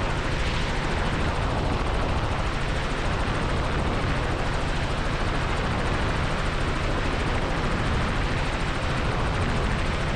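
Robinson R44 helicopter in flight, its rotor and piston engine running steadily, heard inside the cockpit as an even drone.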